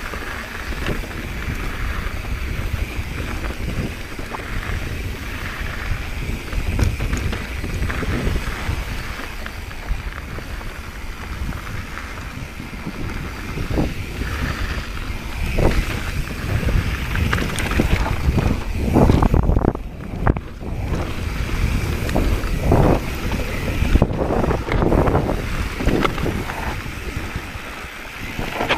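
Wind rushing over the microphone of a mountain bike ridden fast down a rocky dirt trail, with the tyres rolling on dirt and the bike knocking and clattering over bumps; the knocks come thicker and louder in the second half.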